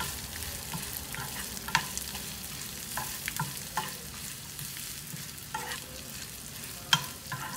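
A metal spoon stirs and scrapes curry leaves, dried red chillies, spices and grated coconut as they roast in oil in a nonstick frying pan, under a soft sizzle. The spoon makes scattered clicks and taps against the pan.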